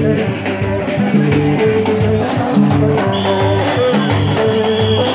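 Lively band music with a regular percussion beat and a stepping bass line. A steady high tone joins about three seconds in.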